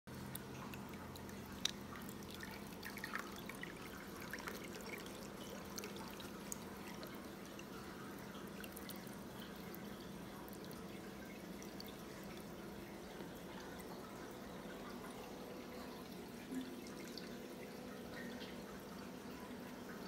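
Aquarium water flowing and trickling through a reef tank's sump, with many small scattered drips and splashes over a faint steady hum.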